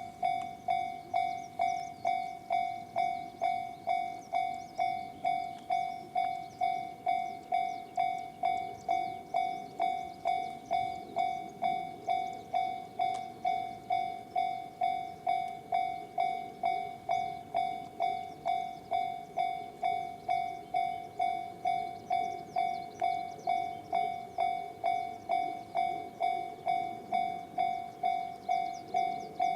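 Japanese railway level-crossing alarm with the JR standard electronic bell tone, ringing at an even pace of about two dings a second, each ding fading before the next.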